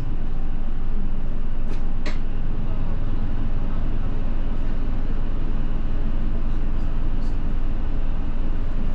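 Steady engine and road noise of a route bus, heard from inside the cabin, with a couple of faint clicks or rattles about two seconds in.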